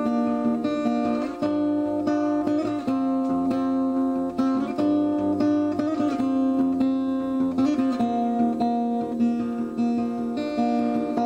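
Acoustic guitar music, plucked and strummed notes ringing over one another at a steady pace.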